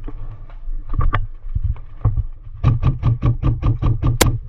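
Airsoft replica firing: a quick string of about nine sharp cracks, roughly six a second, ending with one sharper, brighter crack near the end, after two single shots about a second in. A steady low rumble of movement and wind on the microphone runs underneath.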